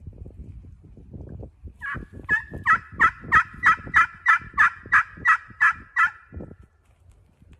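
Turkey friction pot call with a crystal-over-slate surface in an antique wormy chestnut pot, run with a striker in a steady string of about a dozen yelps, about three a second. Faint low scratching and handling sound come before and between the notes.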